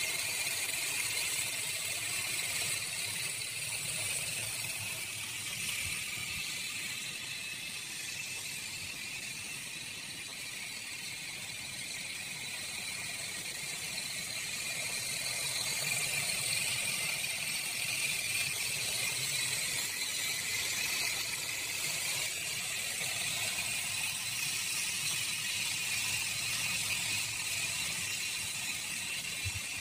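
Quarter-scale coaxial electric model helicopter in flight: a steady high whine and whir from its electric motors and fixed-pitch counter-rotating rotors, swelling a little about halfway through. Wind noise rumbles low on the microphone underneath.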